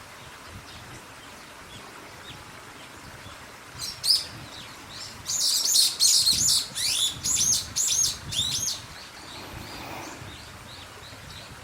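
A songbird calling close by: a short sharp call about four seconds in, then a loud run of quick, high chirping phrases that rise and fall, lasting about three and a half seconds. Under it runs a steady faint hiss.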